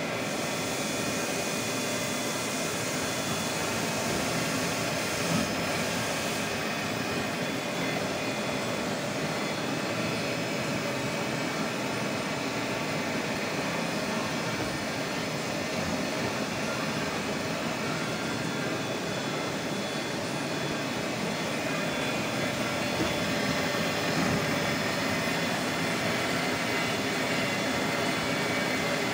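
CNC milling machine running steadily: the spindle and drives make a continuous whine of several steady tones over a bed of machine noise, swelling slightly louder near the end.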